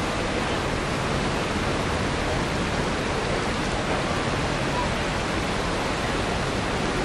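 Creek rapids rushing over rocks: a steady, unbroken whitewater noise.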